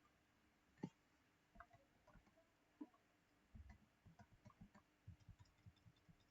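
Faint computer mouse clicks in a quiet room: a couple of single clicks, then a quicker run of soft clicks, about five a second, from about three and a half seconds in.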